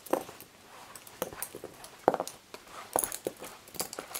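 Lace bobbins knocking and clicking against one another in a series of short, irregular clacks as pairs are crossed and passed through in cloth stitch.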